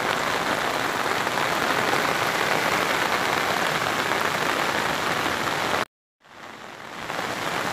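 Rain pouring down, a steady even hiss. About six seconds in it cuts off abruptly to silence for a moment, then fades back up.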